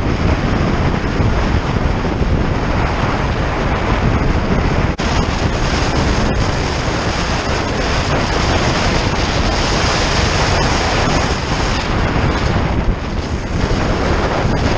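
Wind rushing over the microphone of a camera mounted on a moving bike at road speed, a steady loud rush with a few very short dropouts.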